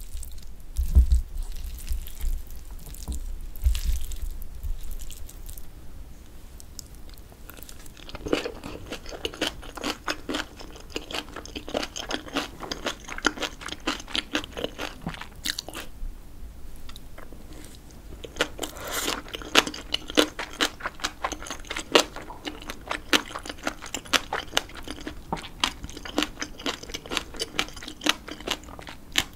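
Close-miked chewing of a mouthful of bibimbap (rice with seasoned vegetables): wet mouth clicks and crunches coming thick and fast. In the first few seconds there are a few low knocks as the bowl is stirred and served.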